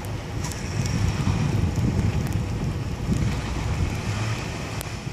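Two-wheel-drive Jeep Wrangler's engine running under load as its wheels spin in deep snow without getting traction, a steady low rumble with wind noise on the microphone.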